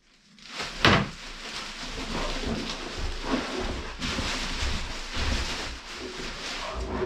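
Plastic wrapping rustling and cardboard scraping while a wrapped white plastic enclosure part is lifted out of a large cardboard box. A sharp knock comes about a second in.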